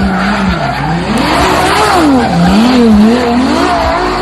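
Ferrari LaFerrari's V12 engine revving hard, its note climbing and dropping several times in quick succession as the revs swing up and down.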